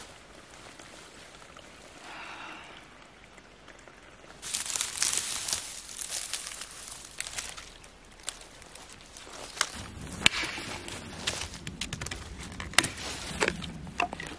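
Quiet at first, then from about four seconds in, footsteps rustling and crunching through dry heather and undergrowth. Toward the end come several sharp cracks of dry wood snapping.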